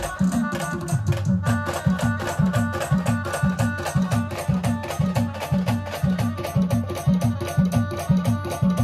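Band music at a sound check: a fast, steady Indian folk-style drum rhythm with held melody notes over it.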